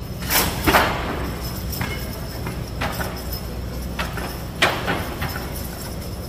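A draft horse team lunging into a sled weighted with concrete blocks: the hitch and harness chains snap taut and the sled lurches. A loud clatter comes about half a second in, followed by single sharp clanks roughly once a second, over a steady low hum.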